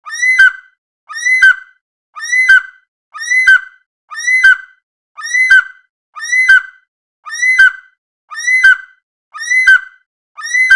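A bird call, about half a second long, repeated identically about once a second, eleven times, with complete silence between the calls, like a looped sound effect.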